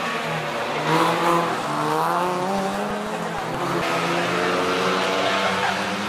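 Several rally car engines, among them a Renault Twingo's, racing past together, revving up and falling back through the corners, their pitches overlapping.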